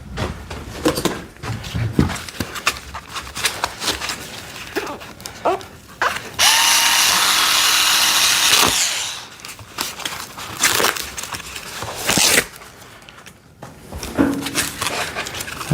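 Cardboard and packing material being handled, with scattered rustles and knocks. About six seconds in comes a loud, steady hissing noise with a faint hum that lasts a little over two seconds, and a shorter loud burst follows later.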